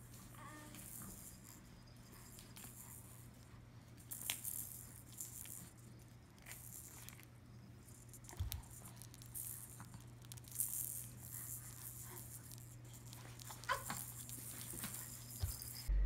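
Faint, scattered rattles and clicks of a baby's play gym toys as the baby bats at and grabs the hanging toys.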